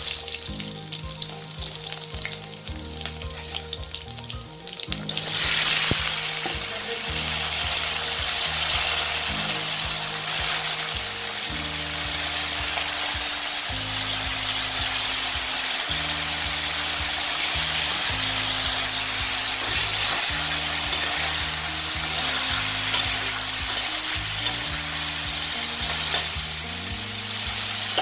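Drumstick and potato pieces sizzling in hot oil in a kadai. The sizzle starts suddenly and loud about five seconds in, when the vegetables go into the oil, then keeps up steadily while they fry. Background music runs underneath.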